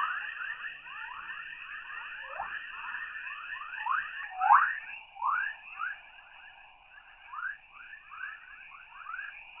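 Earth's 'chorus': electromagnetic plasma waves in the radiation belt, recorded by a NASA spacecraft and played as sound. It is a dense stream of short rising chirps, like birdsong, over a steady high hiss, with a few louder chirps about halfway through.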